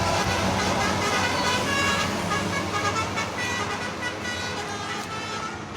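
Basuri 'telolet' multi-tone musical horn playing a quick tune of changing notes over a running vehicle engine and traffic. It grows fainter over the last couple of seconds.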